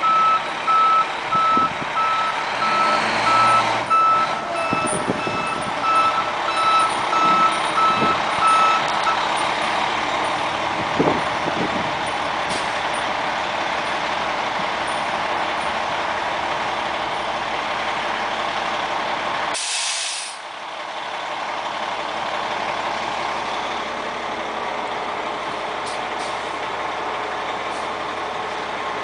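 Fire engine backing up: its reverse alarm beeps steadily for about the first nine seconds over the diesel engine running. About twenty seconds in there is a short burst of hiss, then the engine carries on steadily.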